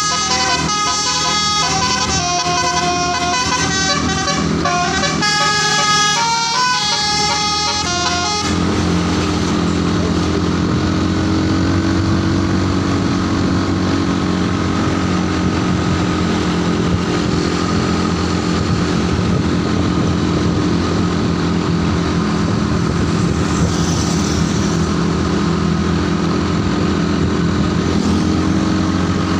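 A bus's telolet basuri musical horn plays a quick multi-note tune for about eight seconds, then cuts off. After that the bus's engine runs steadily.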